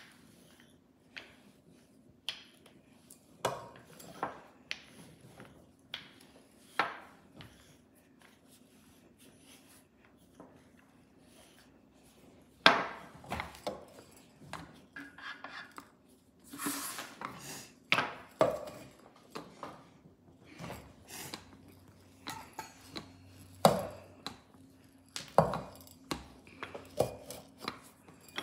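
Rolling pins knocking and rolling against a stone countertop as pizza dough is rolled out: irregular clacks, thumps and rolling rumbles, with one sharp, loud knock a little under halfway through.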